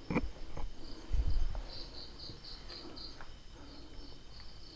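A cricket chirping in quick, even high pulses, about six a second, strongest around two seconds in. Low thumps near the start, the loudest about a second in.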